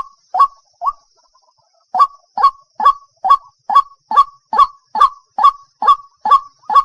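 Waterhen calling: a steady series of short, loud, honking 'kwak' notes, about two a second, with a pause of about a second shortly after the start before the series resumes.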